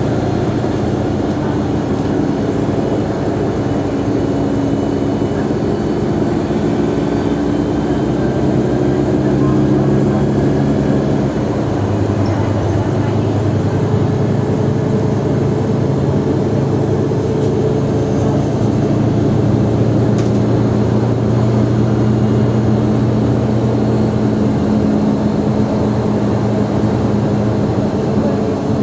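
Mercedes-Benz O345 Conecto G articulated bus's OM457hLA inline-six turbodiesel, running steadily. Its note shifts a few times, settling into a stronger, lower hum about twelve seconds in.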